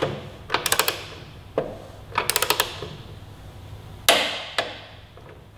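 Torque wrench ratcheting on a motorcycle's rear axle nut: short bursts of rapid ratchet clicks as the handle is swung back, a few single clicks, and a louder sharp metallic clack about four seconds in that rings on briefly.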